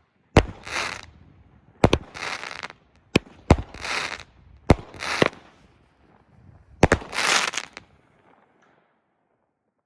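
Consumer fireworks cake firing five shots: each sharp launch report is followed a moment later by a noisy break overhead. The last shot comes about seven seconds in, and the sound fades out soon after.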